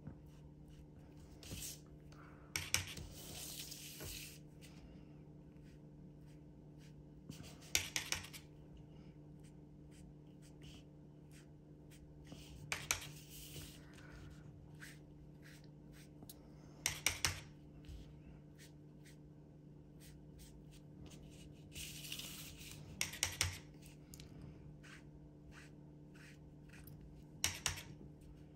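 Sponge dabber dabbing ink onto paper: short clusters of soft taps and rubs every few seconds, over a steady low hum.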